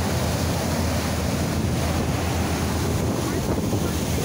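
Steady wind rumbling on the microphone on the open deck of a moving ferry, over the rush of its churning wake.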